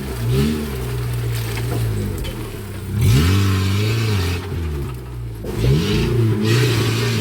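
Off-road 4x4's engine revved in three bursts, the pitch rising and falling back each time, the loudest about three seconds in.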